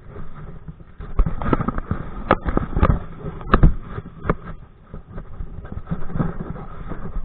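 Wind buffeting a body-worn camera's microphone while kite-kayaking, with water splashing against the kayak and several sharp knocks and slaps, the loudest a little after the middle.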